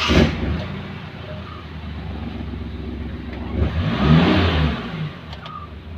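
Maruti Suzuki Omni's three-cylinder petrol engine starting and running, now that the seized fuel pump with its melted socket has been replaced by a whole pump assembly. It is revved up briefly about four seconds in, then drops back to a steady idle.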